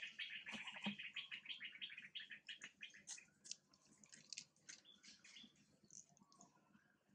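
Small birds chirping faintly: a quick run of chirps, about eight a second, for the first three seconds, then scattered higher single chirps.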